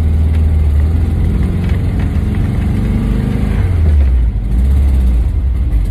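Air-cooled flat-four engine of a 1979 Volkswagen T2 campervan running under way, heard from inside the cab as a steady low drone. The engine note climbs, then drops back a little over halfway through.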